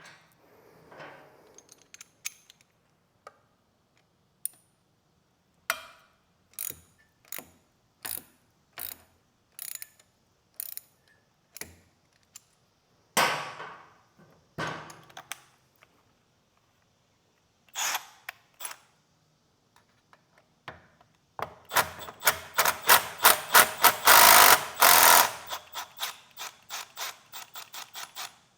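Hand ratchet clicking as exhaust bracket bolts are worked loose: slow clicks spaced out at first, a couple of longer rasps in the middle, then a fast, louder run of clicks near the end.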